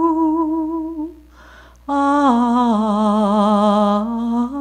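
A woman singing unaccompanied in a slow air, with vibrato. A held note runs to about a second in, then after a breath a long note slides down and rises again near the end.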